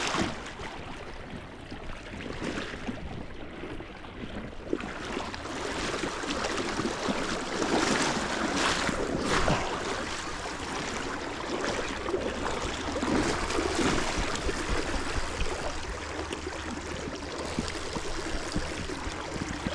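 River water flowing and rushing, with wind buffeting the microphone. A faint steady low hum joins about twelve seconds in.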